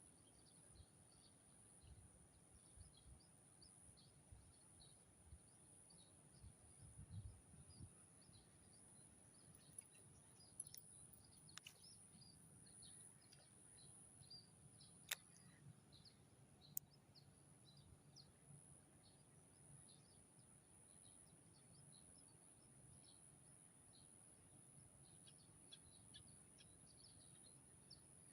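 Near silence: faint outdoor ambience of scattered short, high chirps over a steady high-pitched hum, with a few soft thumps about seven seconds in and two sharp clicks just past the middle.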